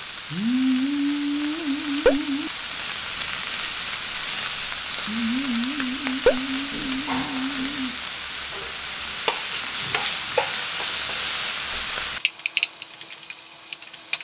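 Beef rib-finger meat sizzling in a nonstick frying pan on a portable gas burner: a steady frying hiss with a few light clicks of metal tongs against the pan. Near the end the sizzle drops away sharply, leaving only a few clicks.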